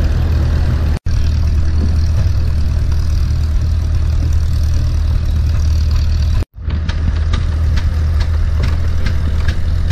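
Tractor engine running steadily while towing a wagon, heard from on board, with a strong low hum. In the last few seconds a run of light ticks comes about three times a second.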